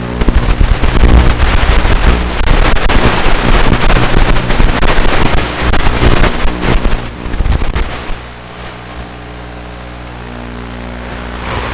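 Micro quadcopter's brushed motors and propellers buzzing. For most of the first eight seconds the buzz is covered by loud, rough, crackling noise; about eight seconds in the noise drops away and a steadier, quieter buzz is left.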